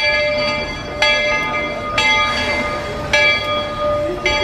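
Bell of a Walt Disney World Railroad steam locomotive ringing about once a second as the train pulls into the station. Each strike rings on over the next, over a low rumble.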